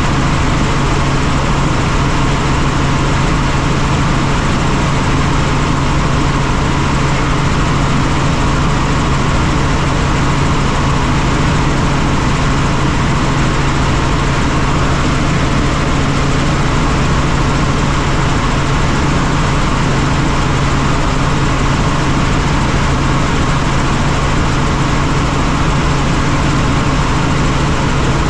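Helicopter in steady flight: constant turbine and rotor noise with a strong, steady low drone that doesn't change.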